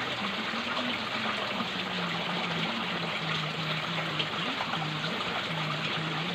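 Water running and trickling over rocks in a small stream channel, a steady flowing noise.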